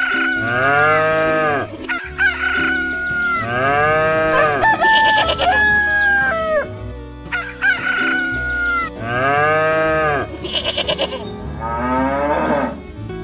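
A rooster crowing three times in long, arching calls, with shorter clucking calls near the end, over background music.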